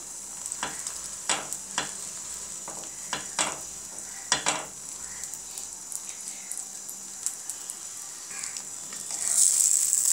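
Egg omelette frying in oil in a nonstick pan: a steady high sizzle with a few sharp clicks in the first half, swelling louder near the end.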